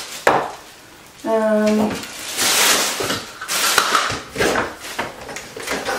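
Small bathroom items knocking and clattering together and rustling as they are handled and packed into a bag, in irregular bursts, with a click just after the start.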